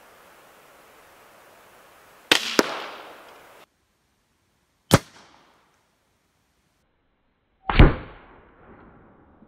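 .22 LR rifle shots firing CCI Segmented hollow point rounds at a clay block. About two seconds in there is a sharp crack with a second crack a fraction of a second behind it, another sharp crack about five seconds in, and a louder, deeper bang near the end.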